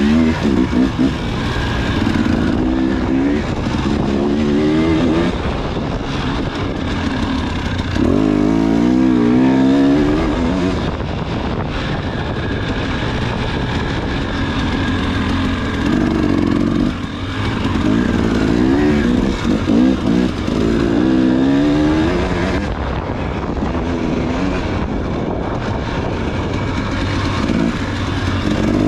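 Off-road dirt bike engine revving hard, its pitch climbing in repeated sweeps and dropping back between them as the throttle opens and closes, over constant wind and riding noise.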